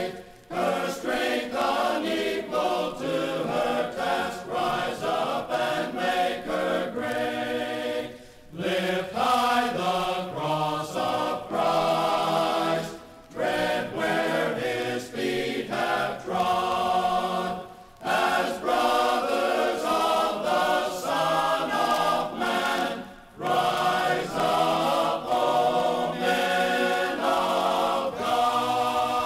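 A men's chorus singing a hymn in parts, unaccompanied, in phrases broken by brief pauses about every five seconds.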